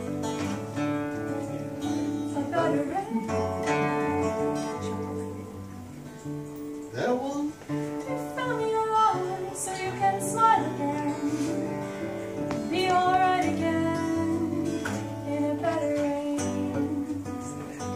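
Acoustic guitar playing steady chords while a woman sings. Her sung phrases come and go over the guitar.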